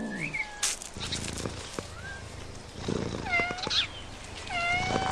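Domestic cat meowing twice in the second half, each meow a drawn-out call that dips in pitch and then levels off, with faint small clicks in between.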